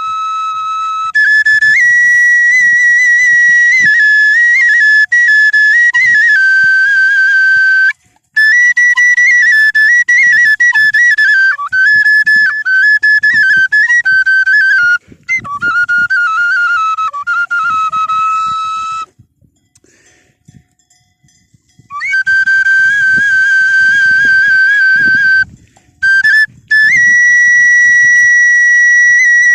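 A solo flute playing a high, ornamented folk-style melody, one note at a time with trills and slides. It breaks off for short pauses several times, with a longer silence of about three seconds past the middle, then resumes on a long held note.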